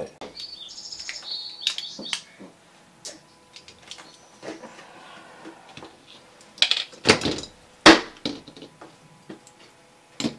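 Clicks, taps and knocks of small plastic and metal RC truck drive-train parts (spur gear, drive cups) being handled and worked with needle-nose pliers on a tabletop. There are a few short high squeaks in the first two seconds and a few louder knocks about seven and eight seconds in.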